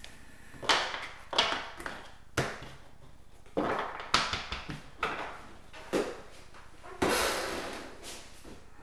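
Handling noises on a table: an irregular series of about eight knocks and short scrapes, with a longer scrape about seven seconds in that trails off slowly.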